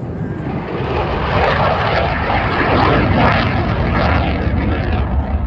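A jet plane flying low past. Its engine noise is a wide rushing sound that swells about half a second in, peaks around three seconds, and fades near the end.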